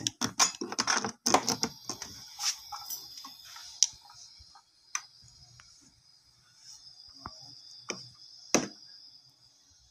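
Clicks and knocks of a microphone and its cable being handled at a karaoke speaker's control panel while testing a mic input that is reported dead. The clicks come thick for about the first three seconds, then only a few scattered ones, over a faint steady hiss.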